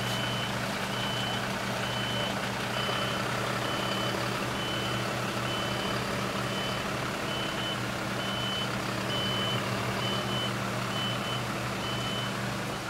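A truck's reversing alarm beeping evenly about twice a second, stopping near the end, over the steady running of the truck's engine.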